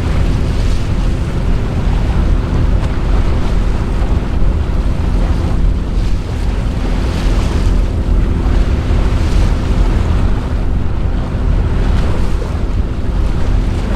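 Cruise boat under way: its engine runs with a steady hum while water rushes and splashes along the hull every couple of seconds. Wind buffets the microphone with a heavy low rumble.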